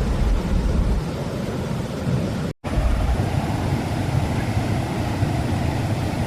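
Steady, loud roar of the Athirappilly waterfall's water, heaviest in the low end, cutting out for a moment about two and a half seconds in.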